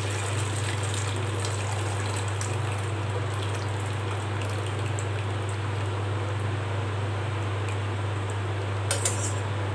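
Boiled curry leaf water poured through a steel tea strainer into an aluminium pot, a steady splashing trickle, as the leaf extract is strained off. A low steady hum runs beneath, and two light clicks come near the end.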